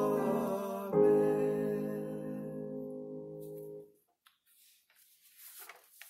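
Two voices finish a hymn's closing 'amen' over a Kawai digital piano. A final sustained piano chord then begins about a second in and fades out by about four seconds, followed by faint rustling of sheet music.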